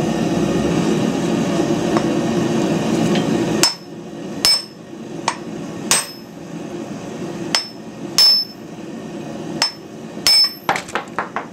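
Hammer blows on the end of a hot steel bar standing upright on a steel plate, upsetting it: about eight heavy, ringing strikes roughly a second apart, starting about three and a half seconds in, then a quick run of lighter taps near the end. A steady rushing noise underneath stops sharply as the hammering begins.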